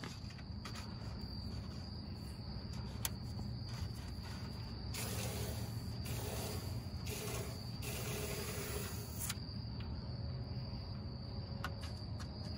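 Aerosol can of rust-proofing spray firing through a thin extension-wand tube into a door cavity: a hiss in about four short bursts between roughly five and nine seconds in. Crickets chirring steadily throughout.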